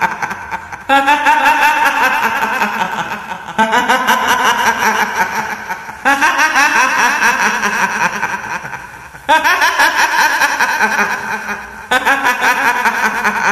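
A kuntilanak ghost's shrill laugh for a horror sound effect: high-pitched giggling that comes in five bursts, each starting sharply and fading away.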